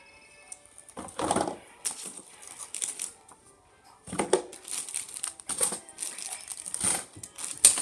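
Hairbrush pulled through long hair close to the microphone: a run of irregular rustling, scraping strokes, starting about a second in.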